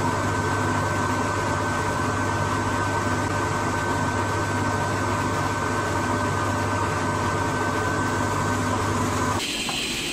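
Sliding-table panel saw running without cutting, a steady motor hum with a thin high whine from the spinning blade. The sound changes abruptly near the end.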